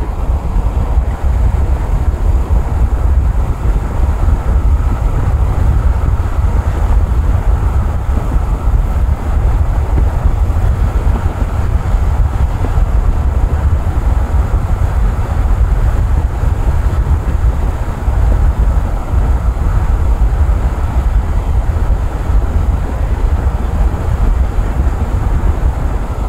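Loud, steady wind buffeting the microphone over the noise of a long freight train of tank cars, boxcars and covered hoppers rolling past.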